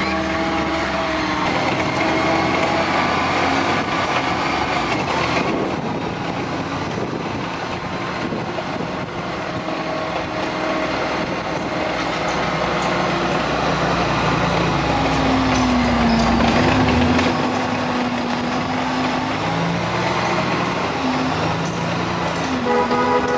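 Motor vehicles driving on a dirt track: a car's engine heard from inside the cabin, then, after a sudden change about five seconds in, vehicle engines heard from behind an armoured vehicle, with the engine pitch dipping and rising near the middle.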